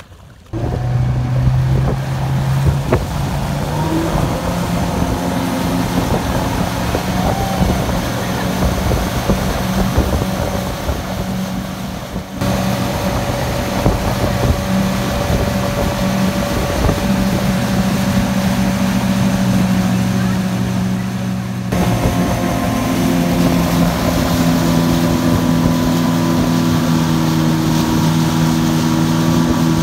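Motorboat engine running steadily at speed while towing, over rushing wind and water from the wake. The engine note changes abruptly about twelve and twenty-two seconds in.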